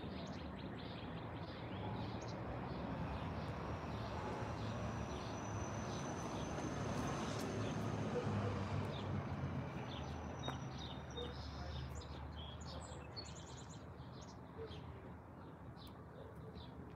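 Birds chirping over a low, steady outdoor rumble that slowly swells to its loudest around halfway through and then fades away.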